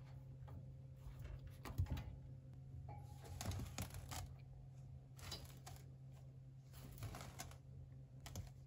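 Faint, irregular bursts of scratching and clicking: a munchkin kitten scrabbling and rolling about on the sisal scratching mat and plastic floor of its wire playpen, over a low steady hum.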